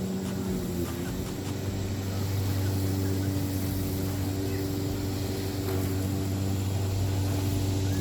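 DeWalt 20V MAX 21.5-inch self-propelled battery lawn mower running under load while cutting grass: a steady electric motor and blade hum, its pitch shifting slightly about a second in.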